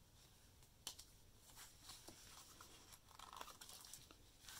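Faint rustling and soft taps of a hardcover book's paper pages being handled and turned, over near silence.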